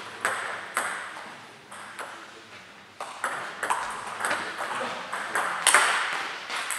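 Table tennis rally: the celluloid/plastic ball clicking off rubber-faced rackets and bouncing on the table top in quick, irregular ticks, with the loudest hit near the end.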